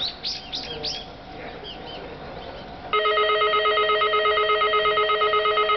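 Station train-approach warning bell: a loud electronic ringing of several warbling tones that starts about halfway in and runs steadily, signalling that a train is approaching. A few high chirps are heard in the first second.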